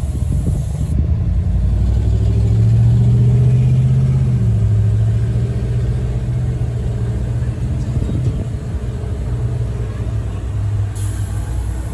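Tire inflator's air pump running steadily, filling a freshly plugged car tire; a low steady hum that swells slightly a couple of seconds in.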